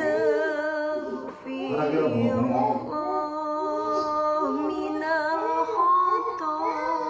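High-pitched singing with music: long held notes over a repeating short melodic figure.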